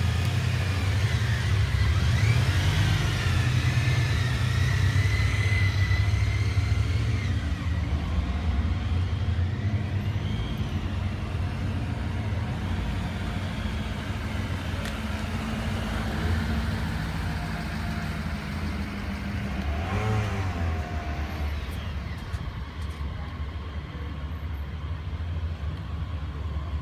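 A motor vehicle's engine running steadily with a deep rumble, with faint wavering higher sounds over it and a brief wavering call or squeal about twenty seconds in.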